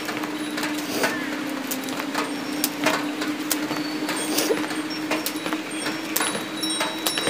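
Experimental film soundscape: a steady low drone holding one pitch, overlaid with scattered sharp clicks and knocks and a few brief, thin high tones.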